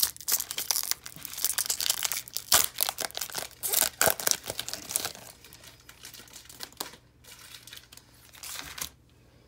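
Foil wrapper of a 2021 Score football card pack being torn open and crinkled by hand, a dense crackling rustle for about five seconds, then fainter, with a few brief rustles near the end.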